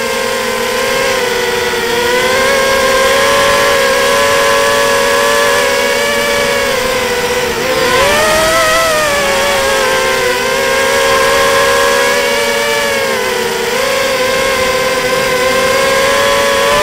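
Bullet 240R racing drone's brushless motors and propellers whining steadily in flight, several close pitches beating against each other. About eight seconds in the pitch briefly dips and rises again.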